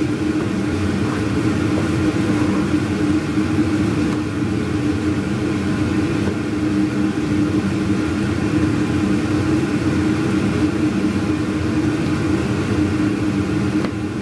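Noisy kitchen range-hood exhaust fan running with a steady hum. Under it, the faint sizzle of corned beef and onions frying in a pan as a wooden spoon stirs them.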